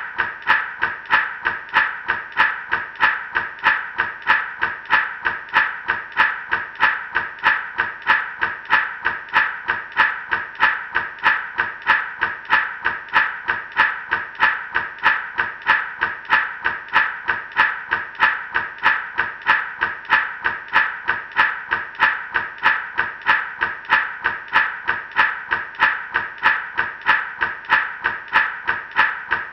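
Gourd rattle shaken in a steady, even rhythm, each shake a dry rattle.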